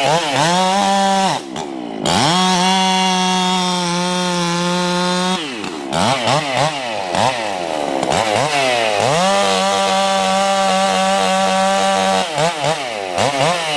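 Husqvarna 395XP two-stroke chainsaw, ported, revving up and down, then held at a steady pitch for about three seconds at a time, twice, as it cuts through wood. Quick throttle blips come between the cuts.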